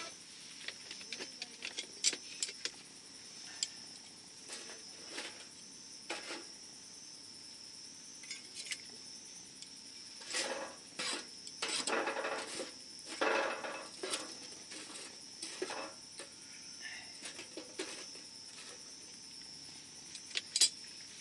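Wood fire crackling, with irregular sharp snaps and pops that come thickest about halfway through, over a steady high thin tone.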